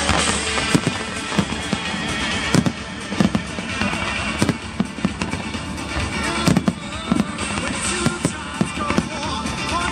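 Fireworks display: an irregular series of sharp bangs as aerial shells burst and comets are fired, over music playing underneath.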